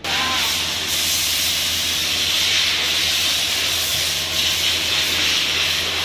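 A loud, steady hiss with a low hum underneath, starting abruptly and holding unchanged.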